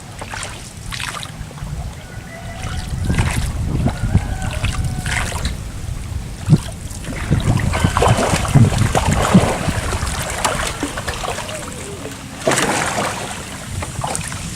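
Water trickling and splashing around a small boat, with a few irregular knocks.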